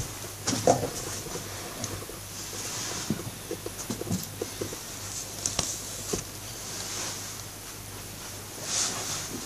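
Light handling noise from a picture card held up close to a phone: scattered small clicks and taps with a louder knock near the start, and soft breaths close to the microphone every couple of seconds.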